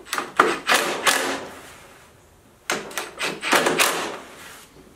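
Cordless drill running in two bursts of about a second each, driving bolts into the underside of a lawn mower's deck.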